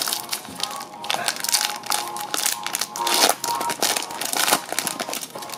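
Foil Pokémon trading-card booster pack crinkling and crackling as it is handled and torn open by hand.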